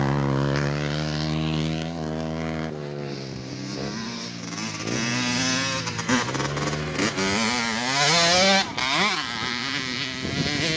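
Mini motorcycle engine running and revving: steady for the first few seconds, then rising and falling in pitch, with a long rev climbing about seven seconds in that drops off suddenly.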